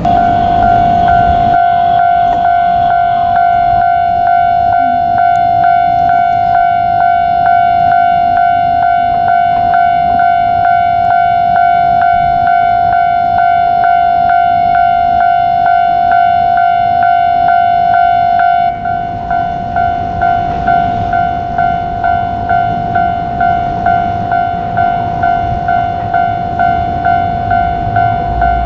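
Japanese railway level-crossing warning bell ringing continuously as a rapid, evenly pulsing electronic ding. About two-thirds of the way through its tone thins and the pulses become more distinct. A train's rumble runs underneath.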